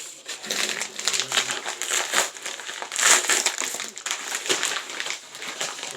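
Packaging crinkling and rustling as a mailed package is unwrapped, with a louder burst of crackling about three seconds in.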